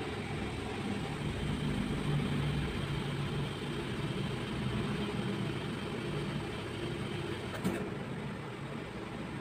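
Steady low mechanical hum, with a faint click near the end.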